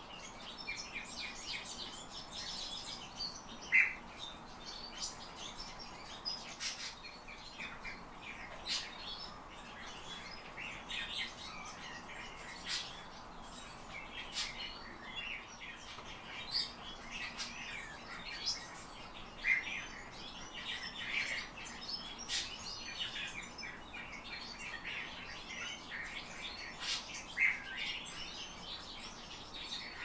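Pet finch giving short chirping calls again and again, with sharp taps scattered through them as it pecks at a hard board.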